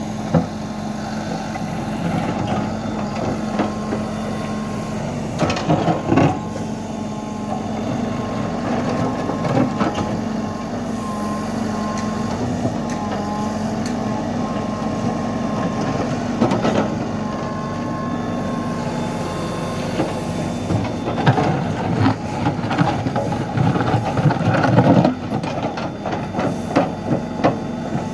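Bobcat B900 backhoe loader's diesel engine running with a steady drone and a faint whine, with scattered clanks and knocks from the machine that become more frequent in the last several seconds.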